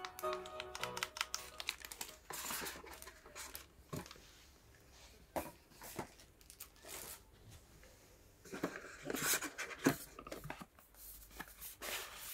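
Packaging being handled: a plastic bag crinkling and cardboard box parts rustling, sliding and knocking in irregular bursts.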